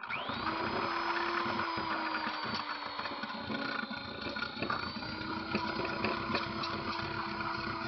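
Electric drill spinning up and then running steadily, a sanding attachment rasping against the cut rim of a tin coffee can to grind off the burrs. The motor's whine sags slightly under load a couple of seconds in, then recovers.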